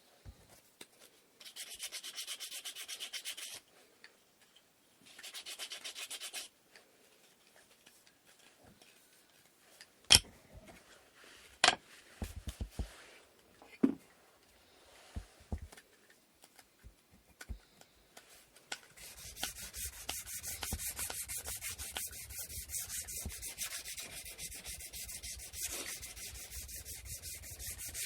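Sandpaper rubbed by hand on wooden inkle loom parts: two short stretches of sanding, then a quieter spell with a few sharp knocks and clicks. From about two-thirds of the way through comes steady, rapid back-and-forth sanding.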